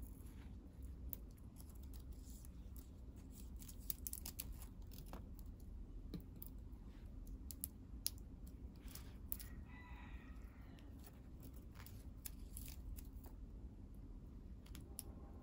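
Faint rustling and scattered small clicks of gold metallic ribbon being wrapped by hand around thin bamboo sticks, over a low steady hum.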